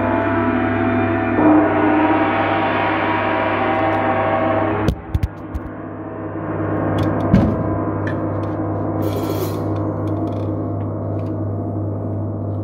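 A large gong and cymbals struck and left ringing in a dense wash of overtones, with a fresh strike about a second in. The ring is cut down suddenly about five seconds in, a softer hit comes a couple of seconds later, and the ringing carries on over a steady low hum.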